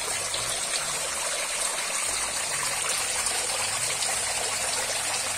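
Steady splashing and churning water in a concrete pond, stirred up by a dense crowd of catfish thrashing at the surface.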